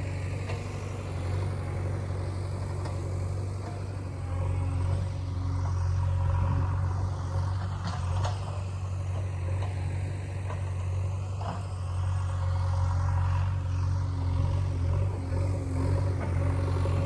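A JCB 3DX backhoe loader's diesel engine running steadily, with a couple of light knocks partway through.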